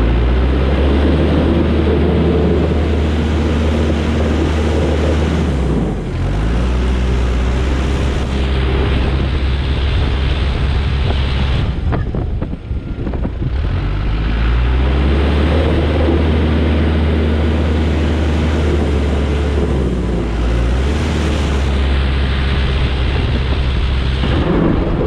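Heavy snow-plowing machine's diesel engine running steadily under load, its pitch shifting about six seconds in and again about halfway through as the engine speed changes.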